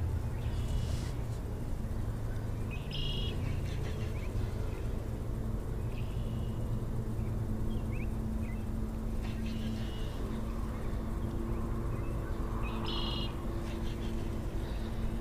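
Several short bird chirps and calls, coming in brief bursts every few seconds, over a steady low outdoor rumble.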